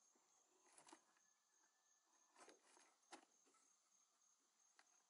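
Near silence: a few faint scrapes and rustles as a cardboard shipping box is handled and its tape cut with a knife, over a faint, evenly pulsing high insect chirp.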